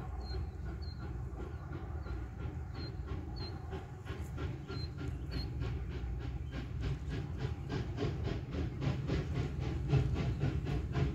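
Train picking up speed: a regular rhythmic beat over a steady low rumble, quickening and growing louder to about five beats a second near the end.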